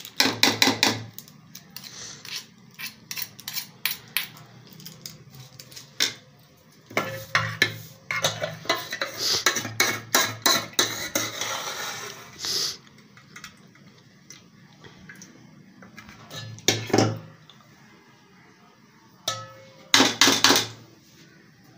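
Steel spoon scraping and clinking against a metal cooking pot as fried onions are pressed to squeeze out their oil and lifted out. The clatter comes in bunches of quick knocks and scrapes with quiet gaps between, with a busy spell in the middle and a loud flurry near the end.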